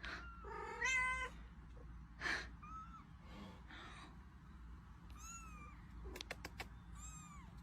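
A cat meowing repeatedly in short, high-pitched, arching mews, with a few sharp clicks about six seconds in.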